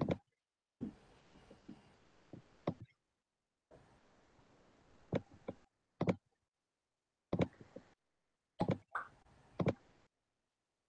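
Quiet, scattered computer mouse clicks picked up by the presenter's microphone, about a dozen over several seconds, between stretches of faint hiss that switch on and off abruptly.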